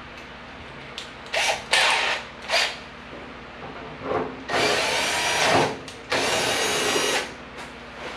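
Power drill run in three short bursts, then in two longer runs of about a second each, enlarging a hole with a bigger bit.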